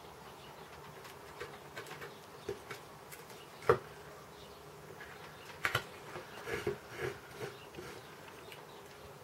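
Chip-carving knife cutting into wood: scattered soft scratches and small clicks as the blade slices and chips come free. A sharp click a little under four seconds in is the loudest, and a run of clicks follows in the second half. A steady low hum lies underneath.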